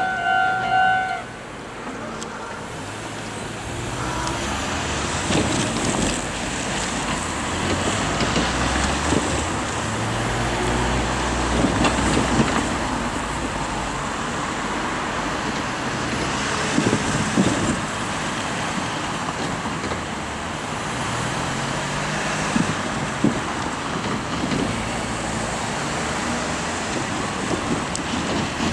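Road traffic at a railway level crossing: cars drive over the crossing one after another, their engines rising and falling as they pass. A steady level-crossing warning bell stops about a second in.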